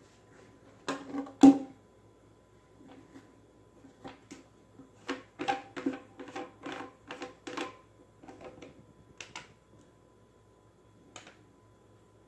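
Plastic clacks and knocks as white plastic P-trap fittings and a corrugated flex drain pipe are handled and fitted together on a stone countertop: two sharp knocks about a second in, the second the loudest, then a quick run of clacks a few seconds later and a few scattered ones after.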